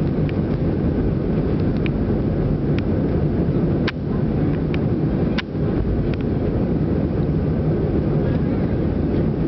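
Steady rumble of an Airbus A319's engines and airflow in the passenger cabin during the climb after takeoff, with two brief clicks about four and five and a half seconds in.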